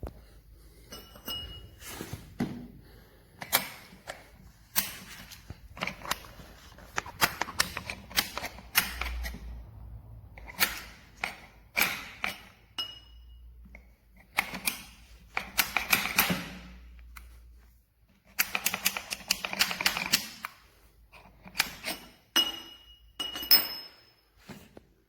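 Irregular clatter of hard objects being handled: clusters of sharp clicks, taps and knocks.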